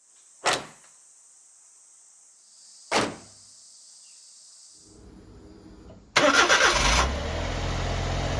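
Two sharp thumps, then the Suzuki Every van's 660 cc three-cylinder engine is cranked and catches about six seconds in, settling into a steady idle.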